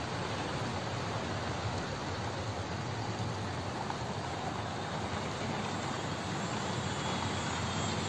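Several OO gauge model trains running together on the layout's tracks: a steady running noise of small locomotive motors and wheels on rail.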